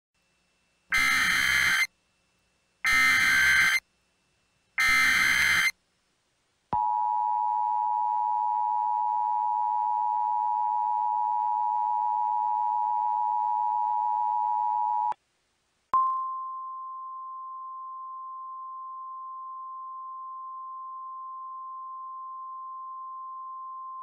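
Emergency Alert System tornado warning opening: three short screeching bursts of SAME header data about two seconds apart, then the two-tone EAS attention signal held for about eight seconds. A second or so later a single steady weather-radio alert tone starts, loud at first and then settling, and holds.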